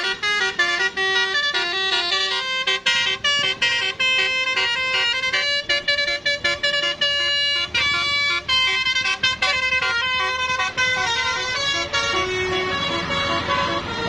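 Bus telolet horn, a multi-tone musical air horn, playing a quick tune of short stepped notes, with a few longer held notes near the end.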